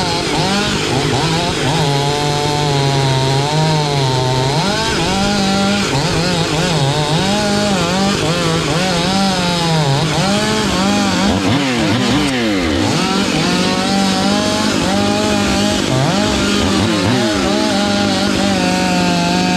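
Stihl MS 500i two-stroke chainsaw running at high revs, cutting wood. Its engine note wavers up and down under load and dips sharply twice, once past the middle and again near the end.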